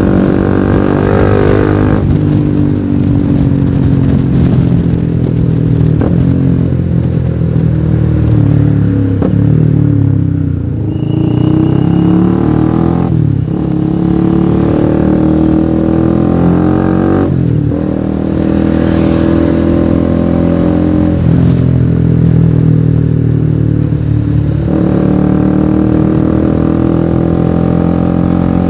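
Honda CBR150R's single-cylinder engine with an aftermarket exhaust, ridden through the gears: the pitch climbs steadily and drops sharply at each upshift, several times over. Around the middle the revs fall for a few seconds as the bike slows, then it pulls up through the gears again.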